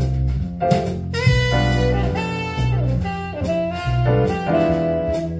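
Jazz: a saxophone plays a melody over drum kit and a walking bass line, heard through large hi-fi loudspeakers in a listening room.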